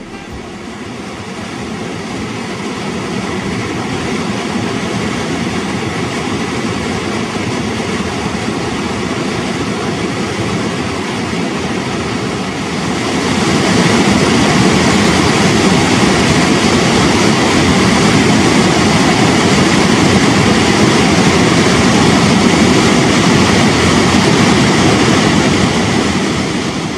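Victoria Falls on the Zambezi: the steady rush and rumble of a huge volume of falling water, growing louder about halfway through.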